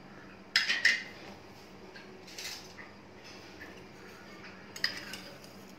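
A few clinks and knocks of steel kitchenware: two sharp ones about half a second in, a soft tap in the middle, and another near the end.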